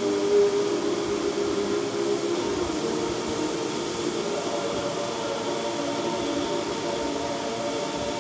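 Film soundtrack playing through a TV's speaker: held tones that shift in pitch about two and a half seconds in, over a steady hiss.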